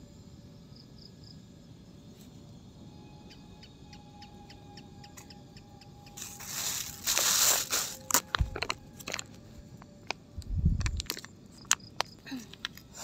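Plastic food packaging crinkling and rustling as it is handled and opened, loudest in a stretch of about two seconds some six seconds in, then scattered crackles and one dull low thump.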